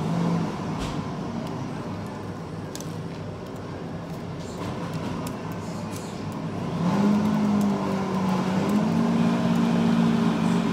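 Laptop keyboard typing, scattered key clicks over a café's background hubbub. About two-thirds of the way in, a louder, steady low machine hum starts, rises a little in pitch and holds.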